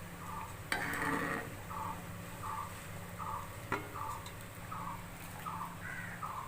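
A few sharp clinks of a utensil against a cooking pot as boiled yam leaves are lifted out of the water, over a short, even call repeating about every three-quarters of a second.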